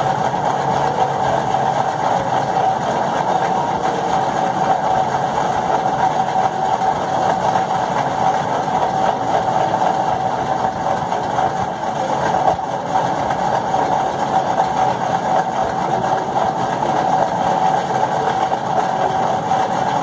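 Steady machine hum with one constant mid-pitched tone, like a small motor running without a break.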